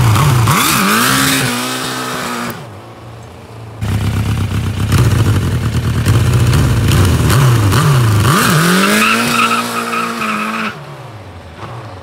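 Superbike engine revving hard during a burnout, the rear tire spinning on soapy water. The revs rise and fall, dip briefly about three seconds in, then run high again before easing off near the end.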